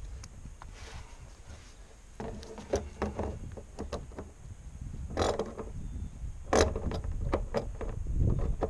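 Slip-joint pliers working a fitting on a plastic rain barrel: a run of clicks, scrapes and knocks from about two seconds in, with two louder knocks in the middle.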